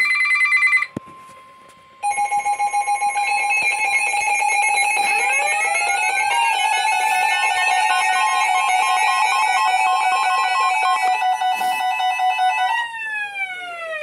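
Several electronic alert tones from weather alert radios sounding at once: a short loud electronic burst, a brief steady tone, then many layered tones, pulsing at first, with rising tones joining about five seconds in. Near the end all the tones slide down in pitch together and die away.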